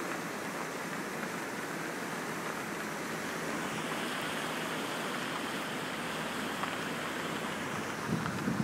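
River water rushing steadily over its bed. Near the end, low gusts of wind buffet the microphone.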